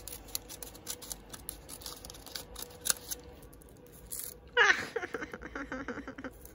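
Paper packaging being cut with scissors and handled, a run of small snips, crinkles and clicks. About two-thirds through, a louder squeaky sound with a falling then wavering pitch takes over for about two seconds.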